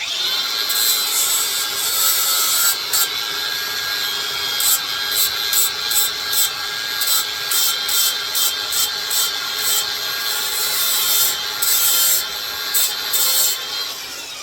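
A handheld power tool running steadily with a whining motor, grinding wood off an axe handle in short repeated strokes to ease the fit where the handle rubs in the axe head's eye.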